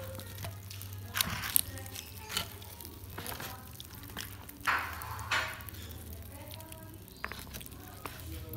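Spoon stirring a saucy plate of tofu, rice cake and shrimp crackers on a paper wrapper: a handful of short crinkles and crunches from the wrapper and crackers, over a steady low hum.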